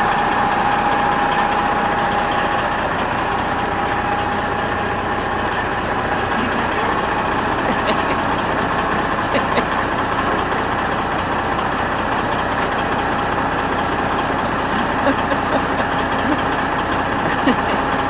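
Peterbilt 379 semi truck's Detroit Series 60 diesel engine idling steadily, heard close to the tractor, with a few light knocks in the second half.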